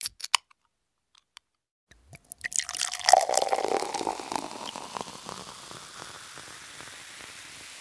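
A few sharp clicks, then about two seconds in a dense crackling, fizzing noise that gradually fades into a steady hiss.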